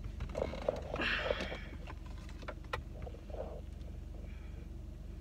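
Car engine idling in a parked car: a low, steady hum. Over it come small clicks and rustling from someone moving in the driver's seat, with a short breathy hiss about a second in.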